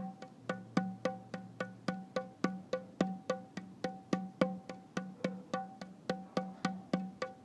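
Instrumental music: a steady, even run of short percussive notes, about four a second.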